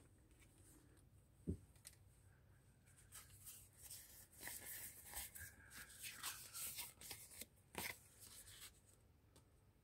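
Faint rustling and sliding of paper and card tags being handled, with small clicks, after a single soft knock about a second and a half in.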